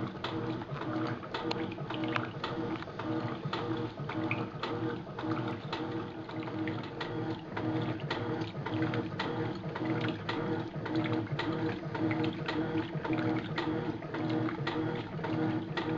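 Electrolux top-loading washing machine agitating a load in the wash phase: a steady motor hum that pulses with the agitator strokes, with frequent irregular clicks and rattles. The owner says its bearings are blown.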